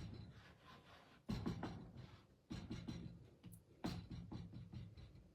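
A rubber stamp being patted repeatedly on an ink pad: a run of quick soft taps, with a few firmer pats about a second in, halfway through and near the end.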